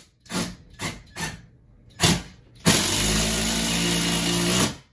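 Power drill driving a screw to fasten a TV wall-mount bracket to the wall. It gives four short trigger bursts, then a steady run of about two seconds at one pitch that stops sharply.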